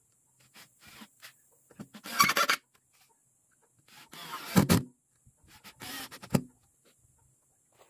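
Cordless drill boring into pine boards, three short bursts about two seconds apart, with small clicks and knocks between them as the bit is moved.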